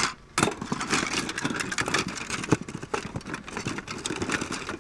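Rummaging through a box of old computer parts and PC expansion cards: a dense, irregular clatter of clicks and rattles.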